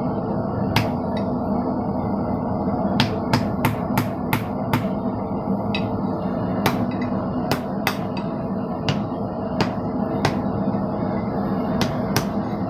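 Hand hammer striking a glowing-hot steel bar on a steel anvil: sharp blows in irregular runs of about three a second, with pauses of a second or two between runs.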